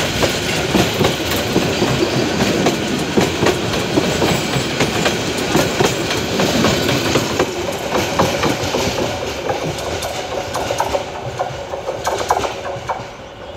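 Passenger train running past, its wheels clattering over the rail joints, with the sound fading toward the end as it moves away.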